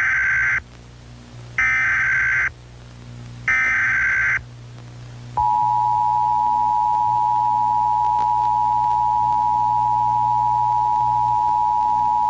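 Emergency Alert System SAME header: three roughly one-second bursts of warbling data tones, about a second apart. About five seconds in, the EAS attention signal starts: a steady two-tone alarm that holds without a break.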